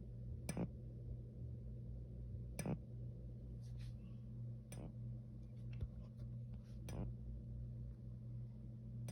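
Simplex 4903-4144 fire alarm horn/strobe that is not working properly, sounding only faintly: a steady low hum with a sharp tick about every two seconds.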